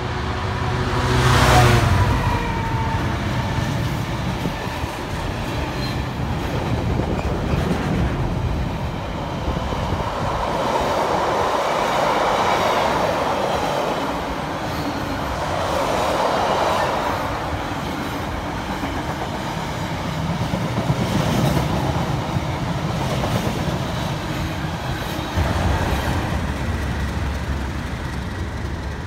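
A Freightliner Class 66 diesel locomotive running through with a freight train, loudest about a second and a half in, its wagons then rumbling and clattering over the rail joints. Near the end a Direct Rail Services Class 37 diesel locomotive comes in with its engine running.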